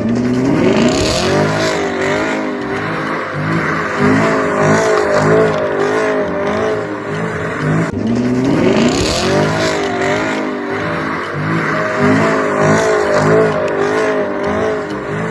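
Racing car engine revving up with a rising whine, then running at high revs with a wavering pitch. The same rev-up and run repeat about eight seconds in.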